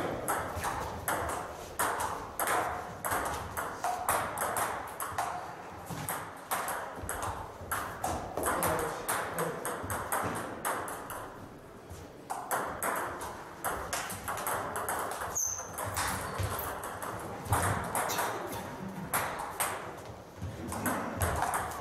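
Table tennis rallies: the ball clicks sharply and irregularly off bats and tables, many hits in quick succession from more than one table. A brief high squeak comes about two-thirds of the way through.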